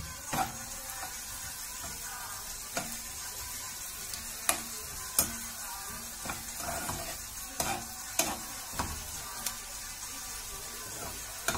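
Sliced onions sizzling in oil in a frying pan as they brown, stirred with a spoon that clicks against the pan now and then.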